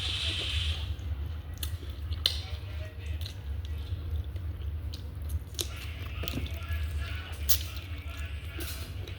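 Chewing and eating noises, with scattered sharp clicks and snaps, over a steady low hum.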